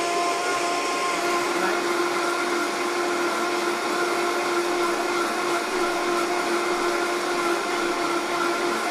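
Vitamix blender running on high with a steady motor whine, blending a bunch of parsley into grapeseed oil. It is run this hard on purpose so that the friction heats the oil to make parsley oil.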